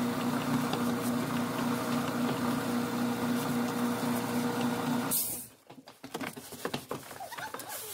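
A steady machine hum with a constant low tone runs, then cuts off abruptly about five seconds in with a brief hiss; after it come a few faint handling clicks.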